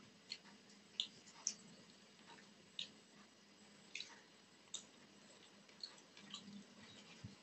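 Close-miked mouth sounds of someone eating rice and chicken curry: faint, irregular wet clicks and smacks of chewing, roughly one a second.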